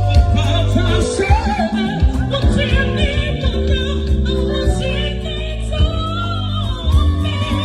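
A gospel song sung over music with a heavy bass.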